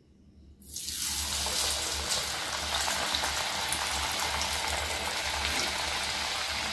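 Raw rice-flour chakli dropped into hot oil in a kadhai and deep-frying: a steady sizzling hiss with fine crackle that starts about half a second in.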